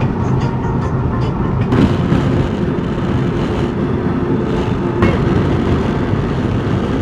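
A car driving: a steady low rumble of engine and road noise, with a couple of sharp clicks, one about two seconds in and another about five seconds in.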